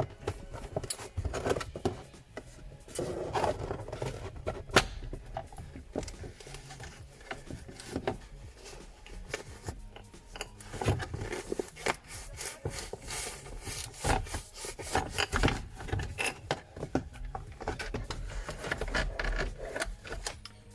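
Plastic shifter trim panel of a 2009 Subaru STi's center console being pulled up by hand. Plastic rubs and scrapes against the console, with many irregular clicks and knocks as its clips work loose.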